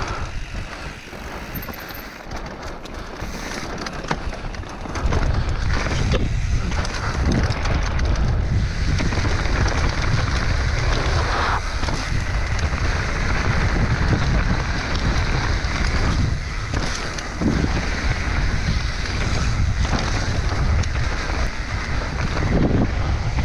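Wind rushing over the microphone of a mountain bike's on-board camera during a downhill run, with tyres rolling on clay dirt and short knocks and rattles from the bike over rough ground. The rush gets much louder about five seconds in as the bike picks up speed.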